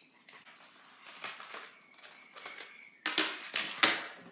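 Rustling and crinkling of a clear plastic zip cash pouch and banknotes being handled, faint at first and louder from about three seconds in.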